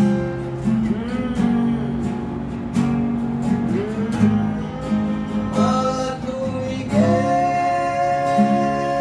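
Tayste TS-35 acoustic guitar strummed and picked, with a wordless sung line that slides between notes and holds one long note over the last two seconds.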